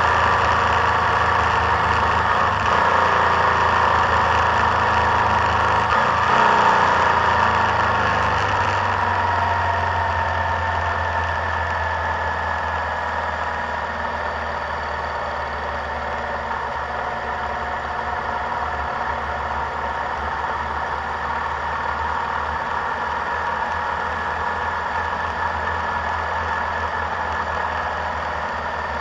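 Vehicle engine running on the move, with wind and road noise. The revs drop about eight seconds in, then hold steady and lower.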